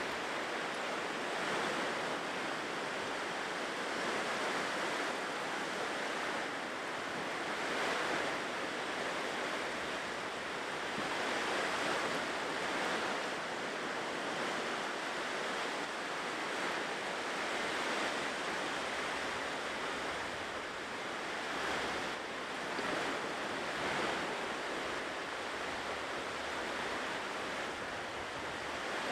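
Ocean waves washing onto a shore, a continuous surf rush that swells and eases every few seconds.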